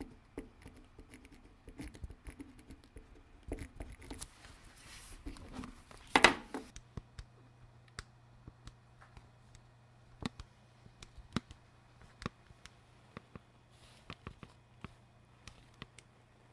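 Handling noises, with one short, louder noise about six seconds in, then the plastic keys of a handheld scientific calculator being pressed: a string of light, irregular clicks over a faint steady low hum.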